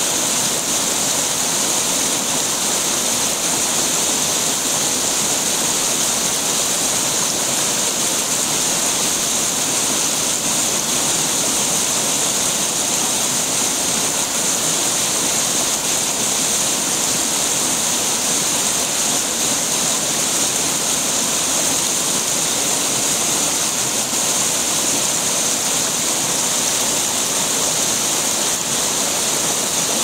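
A small river waterfall pouring into a rock pool, with shallow water running over stones close by: a steady, even, hissing rush of water that does not change.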